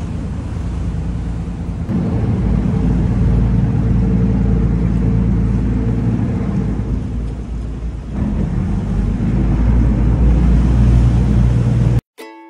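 Sightseeing boat's engine running, with a steady low hum and rushing noise. It grows louder about two seconds in. Near the end it cuts off abruptly into ukulele music.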